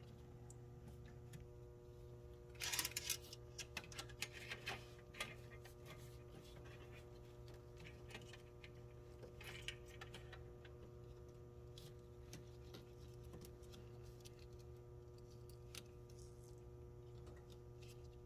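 Faint steady hum with scattered light clicks and rattles, a cluster of them about three to five seconds in.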